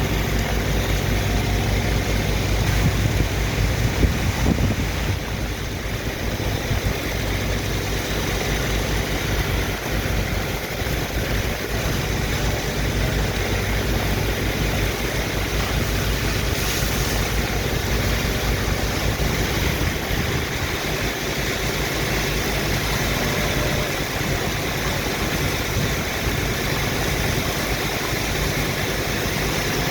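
Heavy engine of a sand-unloading dredge pump machine running steadily with a deep, even pulse, under a constant rushing noise.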